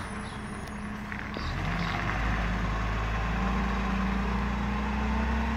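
Diesel engine of an Iveco ACCO garbage truck running as the truck drives up, a low steady drone that grows louder about a second and a half in.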